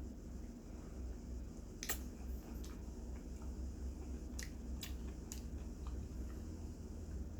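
Quiet eating and handling sounds: about five soft, sharp clicks, like utensils or a plastic container being handled, spread across a few seconds over a steady low hum.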